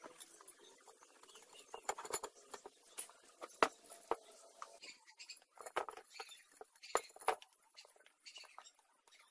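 Steel spokes clicking and clinking against a chrome motorcycle wheel rim and hub as they are threaded through the hub flange holes, in irregular light taps with a couple of sharper clicks.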